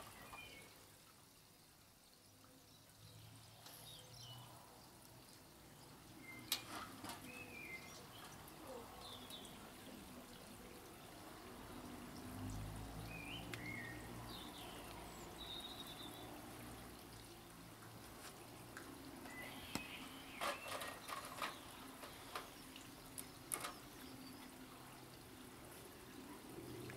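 Faint garden ambience with small birds chirping now and then and a few sharp clicks, mostly near the end, of plastic clothes pegs being snapped onto a washing line.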